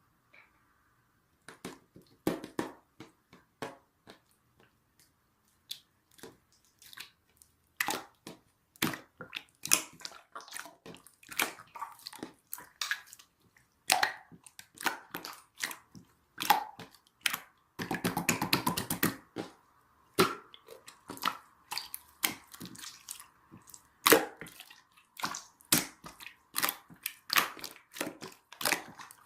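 Irregular wet, sticky clicks and crackles, like hands pressing and squishing a soft material, with a dense stretch of crackling about eighteen seconds in.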